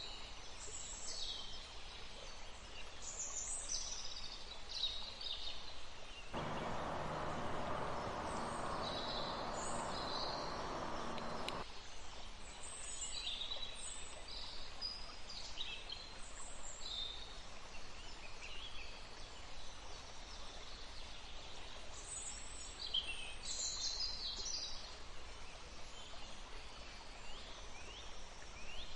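Many forest birds chirping and calling in short high phrases over a steady faint background hiss. From about six to twelve seconds in, a louder rushing noise with a low hum comes in and cuts off abruptly.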